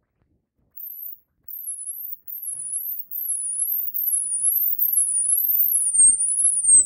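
Piezo speakers with funnel horns, driven by a Kemo ultrasonic frequency generator, giving a shrill sweeping whine that dips and climbs in pitch a little more than once a second. It comes in short broken spurts at first, then runs on steadily, its lowest pitch sinking as the frequency is turned down into the audible range.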